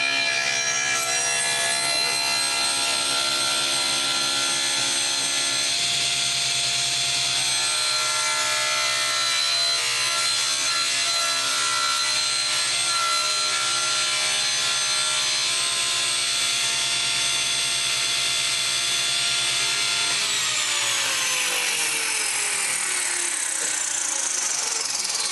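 Table saw running with its blade cutting up through a wooden board. About 20 seconds in the saw is switched off and its whine falls steadily in pitch as the blade spins down.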